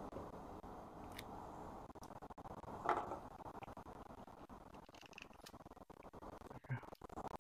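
Faint handling sounds as gloved hands and a small knife pull the seeds out of ripe jackfruit bulbs: small scrapes and clicks, with one louder soft knock about three seconds in, over a steady low room hiss.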